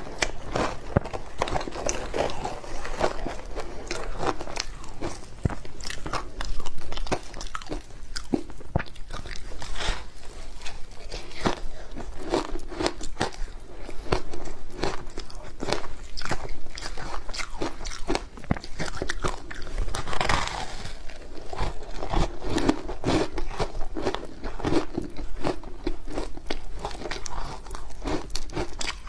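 Close-up crunching and chewing of layered ice, bite after bite, with dense sharp cracks and crackles throughout.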